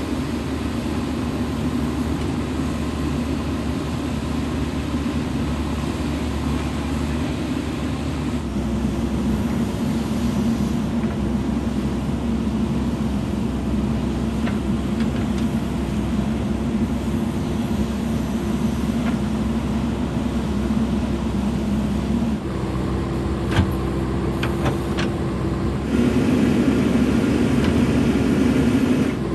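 JCB 3DX backhoe loader's diesel engine running steadily, its level and pitch shifting abruptly a few times and louder near the end. A few sharp knocks about three-quarters of the way through.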